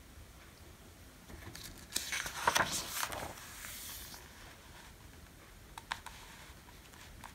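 Page of a paperback picture book being turned, a paper rustle of about two seconds, followed by a couple of faint clicks near the end.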